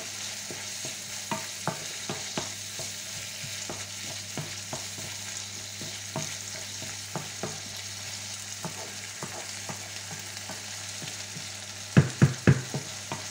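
Diced bacon lardons and onion sizzling in a non-stick frying pan while a wooden spatula stirs them, with light scattered clicks and scrapes of the spatula on the pan. About twelve seconds in, a quick run of louder knocks of the spatula against the pan.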